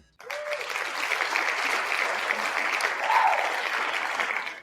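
Applause sound effect: a crowd clapping, starting suddenly and cut off sharply near the end.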